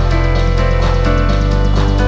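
Background music with a steady beat over held chords; the bass note shifts a little past halfway through.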